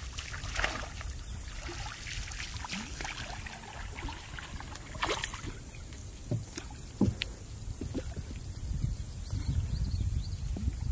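A hooked largemouth bass splashing at the surface as it is reeled to the boat and lifted aboard, with a few short splashes and knocks. Under it is a steady low rumble of wind and water that grows louder near the end.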